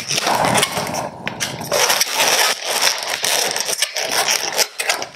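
Latex twisting balloons rubbing and squeaking against each other as a balloon figure is twisted and handled: a dense, scratchy run of rubbing with small clicks.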